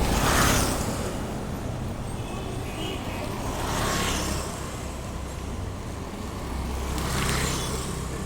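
Road traffic at a bus stop: vehicles pass one after another, three swells of tyre and engine noise over a steady low engine rumble.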